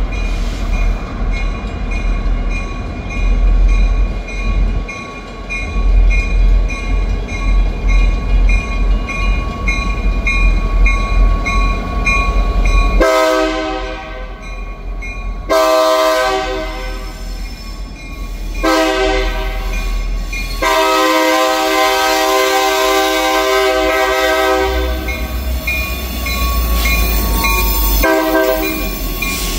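EMD GP50 diesel locomotive rumbling low at slow speed while a mechanical crossing bell rings steadily. About 13 seconds in its air horn sounds the grade-crossing signal, long, long, short, long, and another blast starts near the end.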